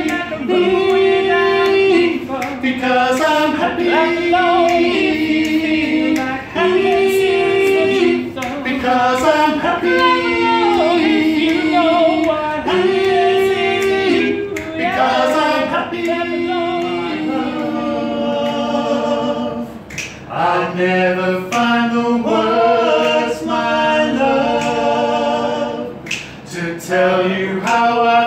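Small male a cappella group singing in close harmony, several voices holding chords together.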